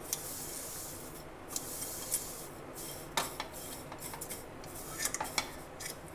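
Wooden spatula scraping and knocking against a stainless steel pot as dry vermicelli is stirred and roasted in oil, in irregular strokes over a faint steady hiss.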